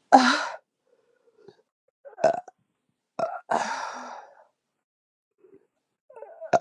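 A woman burping several times on command, beer burps a second or two apart. The one near the middle is drawn out longer than the others.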